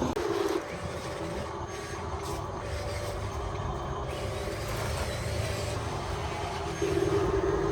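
1:16-scale RC construction vehicles running: a steady low rumble, with a steady motor whine that stops just after the start and comes back near the end.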